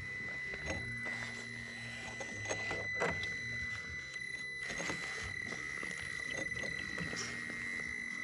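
Traxxas TRX4m Defender RC crawler's small electric motor and geared drivetrain whining steadily as it crawls slowly over rocks, with scattered clicks and knocks of tires and chassis on stone.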